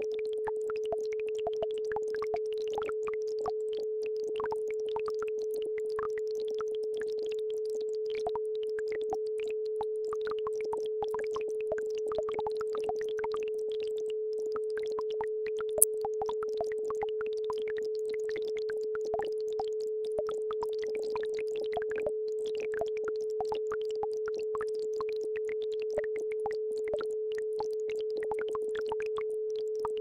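A steady mid-pitched electronic isochronic tone over the irregular trickling and splashing of a babbling brook, with one sharp click about halfway through.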